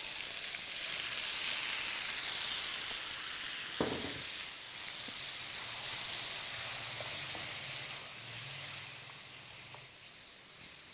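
Marinated goat meat sizzling as it fries in hot mustard oil in a karahi, just added to the pan and being stirred with a spatula. There is one knock about four seconds in, and the sizzle eases off near the end.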